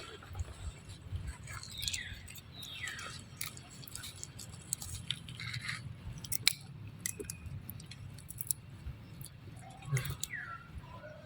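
Baby monkey chewing and smacking on food in its mouth, with scattered wet clicks and a few short, high falling squeaks.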